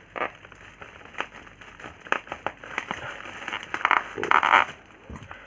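Black plastic bubble-wrap packaging being handled and pulled open: crinkling with scattered sharp crackles, and a louder rustling tear about four seconds in.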